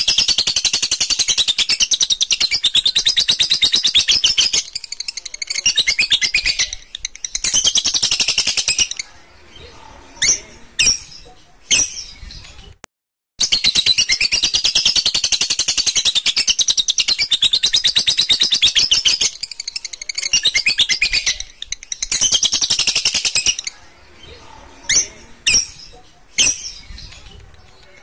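Caged Fischer's lovebird singing its rapid, high-pitched chattering trill in two long bouts of several seconds each, each bout trailing off into a few short single chirps. This is the long unbroken song of a bird being brought on to become a 'konslet', a lovebird that sings on and on without pause.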